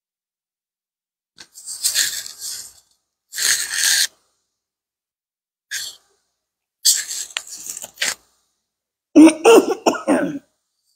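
A woman coughing several times, with a loud run of about four coughs near the end.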